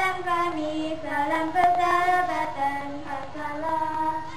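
A group of children singing together on one melody, with long held notes.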